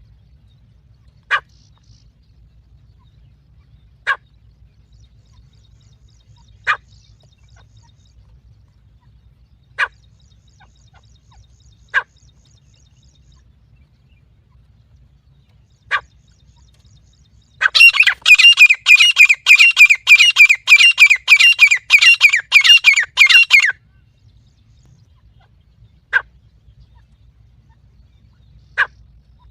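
Teetar (francolin) calls used as a lure: single short, sharp calls every few seconds, then a rapid run of repeated calls lasting about six seconds a little past halfway, then two more single calls. A faint low hum runs underneath.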